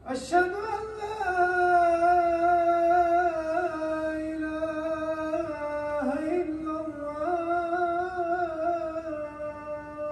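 A man chanting the adhan, the Islamic call to prayer, into a microphone in long, drawn-out melodic phrases with wavering ornaments. A short break comes about six seconds in before the next phrase.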